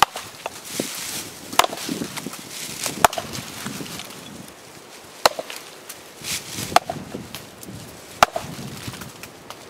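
Council Tool 24-inch boys axe, freshly sharpened, chopping into a log: six sharp strikes about one and a half seconds apart as the edge bites into the wood.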